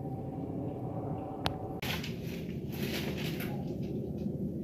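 Jet airliner rumbling overhead with a steady whine, cut off abruptly about two seconds in; after the cut, crackling noise on the microphone over the rumble.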